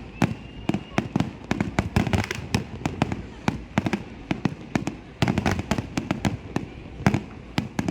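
Fireworks display: a dense, irregular barrage of exploding shells, with clusters of sharp bangs following each other several times a second.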